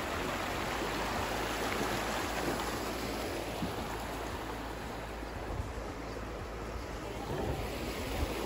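Steady rushing of running water, like a stream, easing slightly around the middle.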